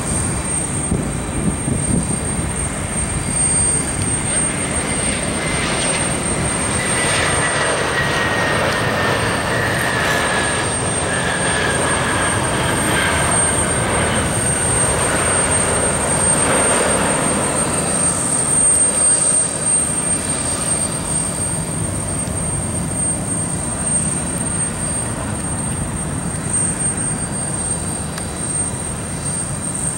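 Frontier Airlines Airbus A321 jet airliner passing close on landing, its engines giving a steady roar. A thin whine falls in pitch as it goes by, about a quarter of the way in.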